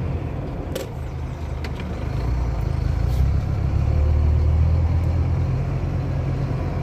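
Scania P310 tow truck's five-cylinder diesel engine running as the truck drives, heard from inside the cab. The low engine note swells about two seconds in and stays up for a few seconds. Two short clicks come in the first two seconds and another near the middle.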